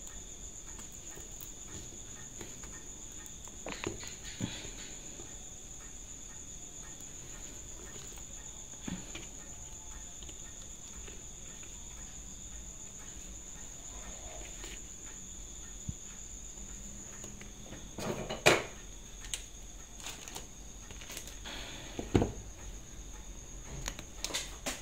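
Scattered light clicks and taps of a small metal tool against a watch case as it is handled on a work mat. The sharpest knock comes about 18 seconds in. A steady high-pitched whine runs underneath.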